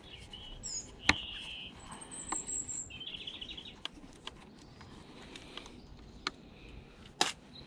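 Small birds chirping in short calls in the first few seconds, with a few sharp clicks from a screwdriver working screws on the vacuum cleaner's plastic housing; the loudest click comes near the end.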